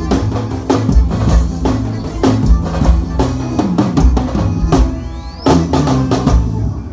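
An amplified band playing through a sound check: drum kit with kick and snare on a steady beat over bass and keyboard chords. About five seconds in, a rising sweep leads into a set of hits, and the music starts to ring out near the end.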